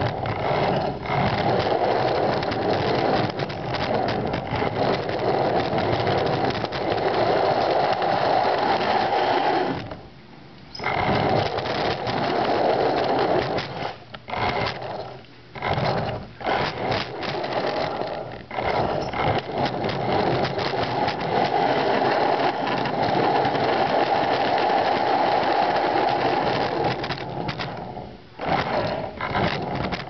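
Small electric drive motor of a homemade wooden RC vehicle whirring as it drives, turning hard-drive-platter wheels through rubber-lined pulleys. The whir cuts out briefly several times as the vehicle stops and starts, longest about ten seconds in.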